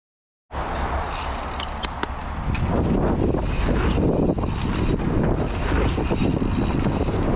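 Half a second of silence, then a mountain bike riding down a dirt jump line: wind rumble on the microphone, tyres on loose dirt and sharp rattles and clicks from the bike, with the rumble louder from about three seconds in.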